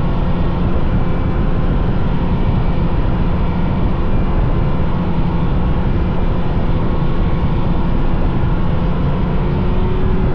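Vintage snowmobile engine running steadily on the trail at an even throttle.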